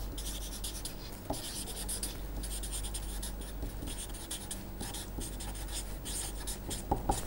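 Marker pen writing on paper: a run of short, irregular scratchy strokes as words are handwritten, over a low steady hum.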